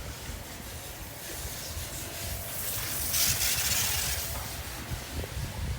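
Wind buffeting the microphone of a camera on a moving bicycle, a steady rushing with a low fluttering rumble; the hiss swells for a second or so about three seconds in.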